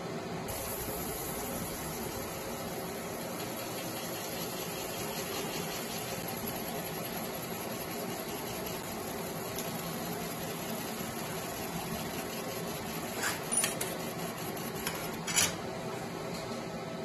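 50 W fiber laser marking machine cutting 1 mm stainless steel: a steady fan hum with a high-pitched hiss that comes in about half a second in, as the laser starts firing on the sheet. A few sharp clicks near the end.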